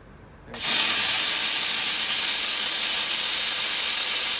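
Jet of steam hissing steadily from the hand spray gun of a Eumax SJ6-4LG steam cleaner, its 4-litre stainless-steel boiler at full working pressure of about 6 bar. The hiss starts about half a second in.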